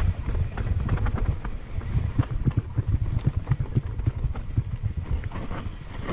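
Downhill mountain bike riding a rough dirt forest trail: a steady low rumble of tyres on the ground, with irregular knocks and rattles as the bike jolts over bumps and roots.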